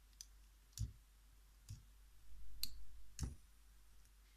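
Lego plastic pieces clicking and knocking as parts are handled and fitted onto a Lego fidget spinner, about five separate sharp clicks at uneven intervals.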